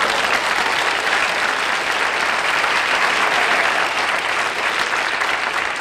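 Studio audience applauding a comedy punchline, a steady, dense clapping.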